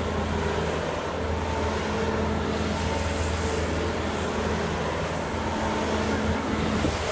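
Bobcat skid-steer loader's diesel engine running steadily at an even pitch as the machine tips and pivots on two wheels.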